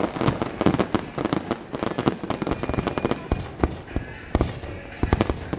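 Starmine fireworks barrage: shells bursting in rapid, irregular succession, a dense mix of sharp bangs and crackling.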